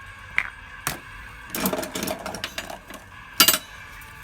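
Clicks and a rattling clatter from a capsule-toy vending machine being turned and toy capsules handled, with a sharp loud click near the end.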